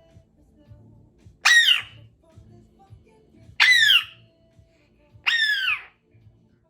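Congo African grey parrot giving three loud whistled squawks, each about half a second long and falling in pitch, evenly spaced about two seconds apart.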